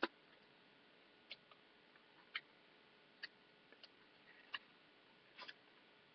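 Faint crackles and ticks of a square of origami paper being pushed in and collapsed along its creases by hand, about one a second, with the sharpest click right at the start.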